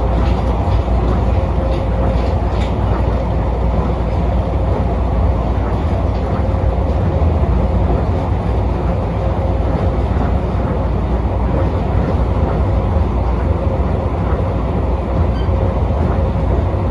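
Tokyo Monorail train heard from inside the car while running at speed: a steady low rumble of rubber tyres on the guideway, with a faint steady tone over it.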